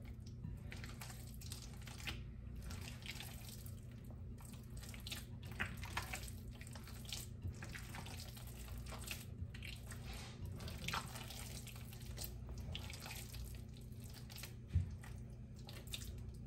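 Hands squishing and kneading a wet meatball mixture of ground meat, soaked breadcrumbs, milk and eggs in a bowl: irregular squelching over a steady low hum, with a single knock near the end.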